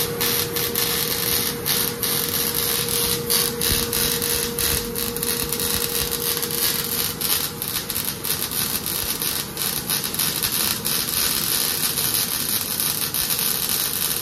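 Steady crackling hiss of metalworking in a welding shop, with a steady mid-pitched whine that stops about halfway through.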